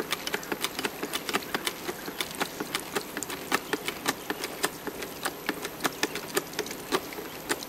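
A 2-ton hydraulic bottle jack being pumped by hand, its handle and pump clicking several times a second in an uneven rhythm as the ram rises to compress the briquettes.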